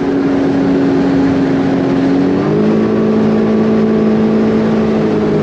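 Sea-Doo personal watercraft engine running at speed over a steady rushing noise, its pitch stepping up about two and a half seconds in as it speeds up.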